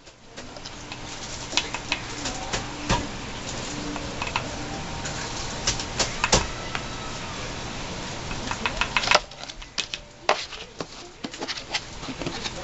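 Tablespoon scooping flour and tapping it into a mug: a run of clicks and light knocks over a steady rustling noise that stops about nine seconds in.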